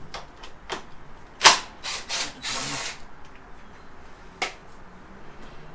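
Hand-working a motorcycle seat and plastic bodywork loose: scattered plastic and metal clicks, a sharp knock about a second and a half in, a short scraping rustle, and another sharp click near the end.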